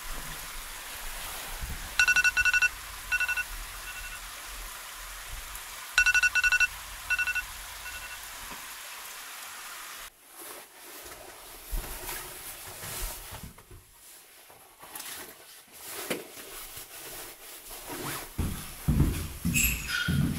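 Electronic alarm beeping in two identical rounds about four seconds apart, each a longer beep followed by a few shorter, fainter ones, over a steady hiss. After about ten seconds it gives way to quieter rustling, with soft low knocks near the end.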